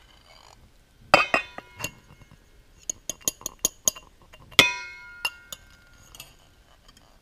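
A fork and a ceramic bowl clinking against the rim of a stainless steel mixing bowl as beaten egg is poured and scraped out: a few separate clinks, a quick run of light ticks from the fork, then a louder clink about four and a half seconds in that leaves the steel bowl ringing for about a second.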